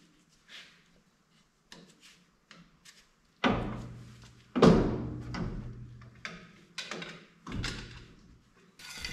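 Metal clunks as a Dana 44 differential carrier is worked loose and out of the axle housing: a few light taps, then three heavy clunks about three and a half, four and a half and seven and a half seconds in, each ringing briefly.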